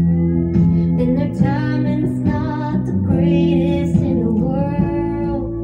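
Country music playing from a vinyl record on a turntable: guitar accompaniment under a sustained melody line that wavers with vibrato.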